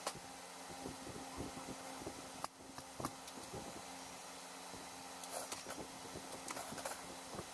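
Faint steady hum with scattered light clicks and knocks, with a brief quieter moment about two and a half seconds in and a run of sharper clicks near the end.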